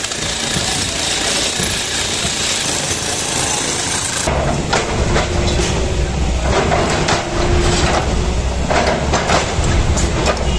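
A dense rushing noise, then from about four seconds in a JCB tracked excavator's engine runs with a low rumble while repeated crashes and clatter sound as its bucket breaks into a building's glass and concrete front.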